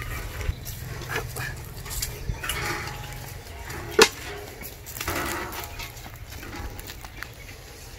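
Wind rumbling on the microphone for the first few seconds, with scattered faint ticks and one sharp knock about four seconds in.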